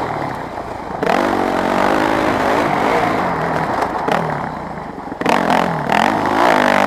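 Yamaha WR250F's single-cylinder four-stroke engine revving up and down as the throttle opens and closes, surging about a second in and again near the end.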